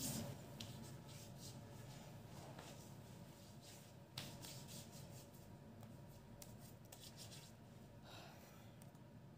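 Faint rubbing of hands spreading body lotion over the skin, with a small click about four seconds in.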